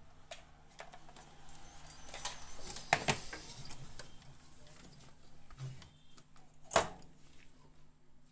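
Scattered clicks and taps of repair tools against a TV circuit board while a burnt resistor is being removed, with a sharp click about a third of the way in and a single loud click near the end.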